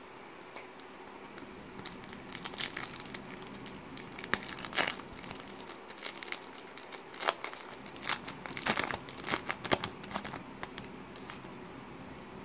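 A foil Panini Threads 2016-17 basketball card pack crinkled and torn open by hand: a run of sharp crackling crinkles from about two seconds in until near the end.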